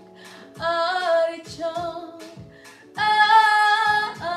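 A woman singing an upbeat pop-style song about artichokes over a backing track with a steady beat. She holds a long note near the end.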